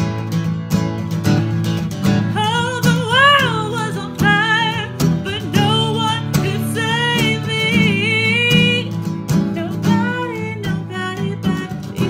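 Two acoustic guitars strummed together while a woman sings a melody over them, her voice wavering and gliding between notes.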